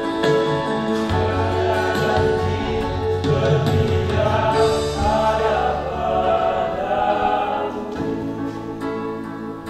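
Mixed choir of young women and men singing a gospel song in parts, with the men's voices carrying a low line under held chords. The singing grows quieter near the end.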